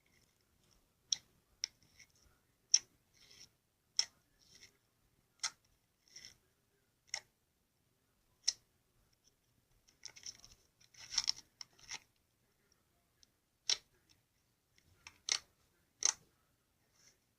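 Slime being pressed and poked by hand, giving sharp clicks and pops about once a second or so, with a short run of crackling a little past the middle.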